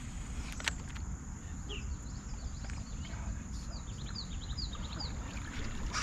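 Low, steady outdoor rumble of wind and water around a wading angler, with one sharp click about half a second in. Near the end a bird gives a quick series of short, falling chirps.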